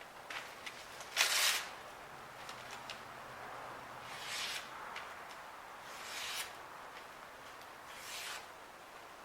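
A freshly stropped Damascus knife blade slicing through a sheet of paper, four short hissing cuts a couple of seconds apart, the first the loudest: the blade now cuts cleanly.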